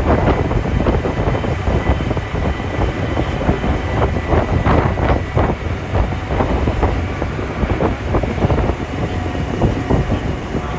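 Tour truck driving over rough ground, with a steady low rumble and frequent rattles and clunks from the moving vehicle.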